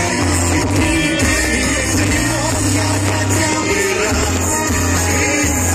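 Pop ballad music with sustained bass notes, in a passage between sung lines.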